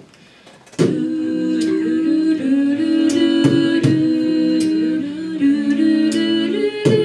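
A cappella group of six mixed voices singing through microphones, coming in about a second in with sustained hummed chords in close harmony. A few sharp percussive hits cut through now and then.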